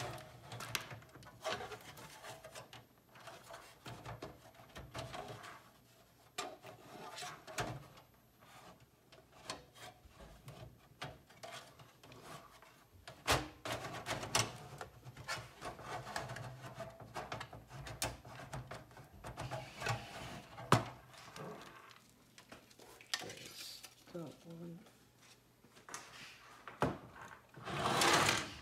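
A screwdriver and a power supply unit being handled in a metal PC case while the PSU's mounting screws are taken out: scattered clicks and knocks with scraping rubs, and a couple of sharper clicks.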